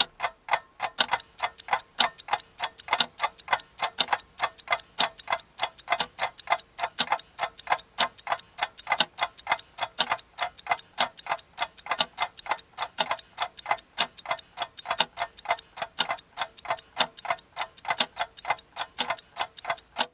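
Mechanical clocks ticking, several ticks a second at uneven spacing and strength, like a few clocks running out of step, over a faint steady hum. The ticking stops abruptly at the end.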